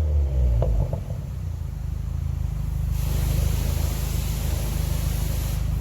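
Turbocharged FA20DIT flat-four of a 2016 Subaru WRX with a catted downpipe and Invidia R400 exhaust, its revs falling back to idle in the first second, then idling steadily with a low, even pulse. A steady hiss joins about three seconds in.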